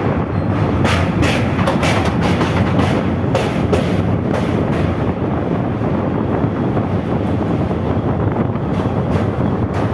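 Passenger train running across a steel truss bridge, heard from inside the coach through an open window: a steady rumble of wheels on rails and carriage noise, with a few sharper clacks in the first few seconds.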